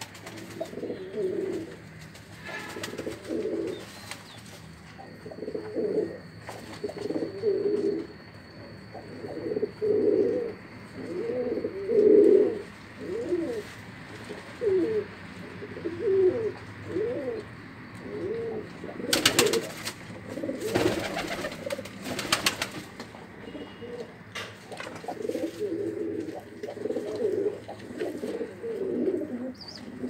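Domestic pigeons cooing, low calls following one another almost without pause from several birds. A few sharp clattering noises come about two-thirds of the way through.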